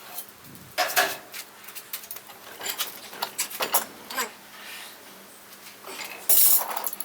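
Steel clanking and scraping as a heated bar of 12 mm rebar is set in and twisted: a string of sharp metal knocks, a loud clank about a second in and a louder scrape near the end.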